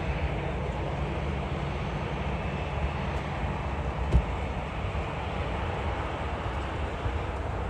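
Steady rumble of jet airliner engines at taxi power, with a single short knock about four seconds in.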